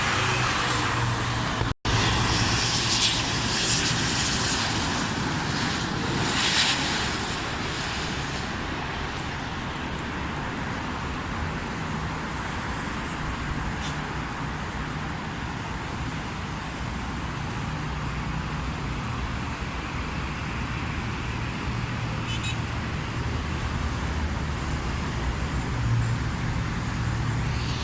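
Boeing 777-200ER jet engines running during the landing, a loud, steady noise with a low hum. It is hissier for the first several seconds, then settles. The sound cuts out briefly about two seconds in.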